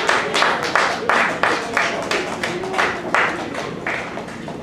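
A crowd clapping in time, about three claps a second, gradually fading out.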